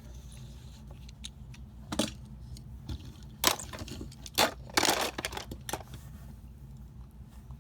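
Steady low rumble of a car cabin while driving, with a handful of sharp clicks and rattles, like small objects being handled, between about two and six seconds in.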